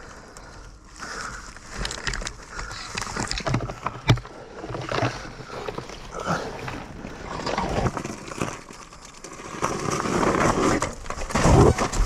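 Yamaha YZ250FX four-stroke single-cylinder dirt bike engine revving in uneven surges as it picks through rough terrain, mixed with knocks and scrapes, the loudest surge near the end.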